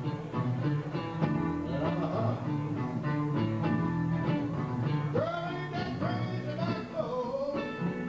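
Live blues-country song: a man singing over two guitars, one of them an electric guitar, playing steadily.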